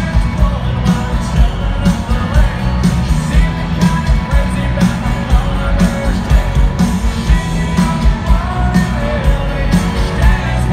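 Live country band with a male lead singer, played loud over a strong, steady beat.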